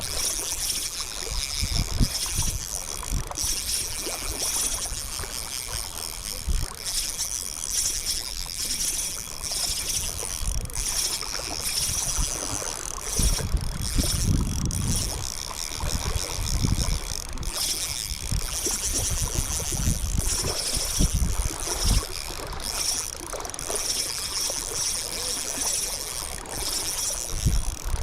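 Wind buffeting the microphone in irregular gusts of low rumble, over a steady high hiss.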